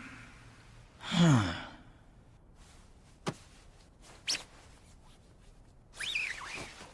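A character's short low sigh, falling in pitch. It is followed by two sharp clicks about a second apart and a brief higher sound that falls in pitch near the end.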